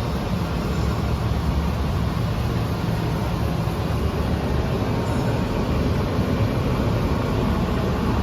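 Poreba TR100B/8M heavy manual lathe running under power: a steady mechanical drone that holds constant throughout.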